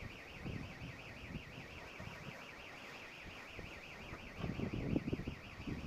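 An electronic alarm sounding a steady, fast high-pitched warble, over the rush of wind and water at sea, which grows louder and gustier past four seconds in.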